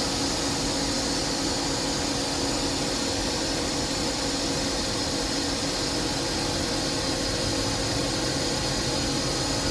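FANUC Robodrill α-D21SiA5 CNC drill-tap machining center running: a steady machine hum with several fixed whining tones that hold at one pitch.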